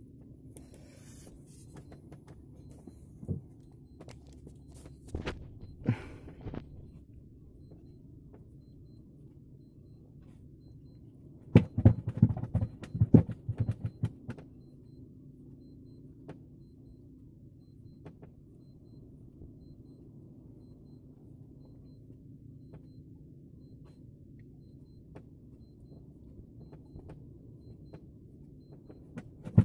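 Low steady hum with scattered knocks, then a burst of heavy low thumps about twelve seconds in, from a fisherman handling his handline and gear in a wooden canoe.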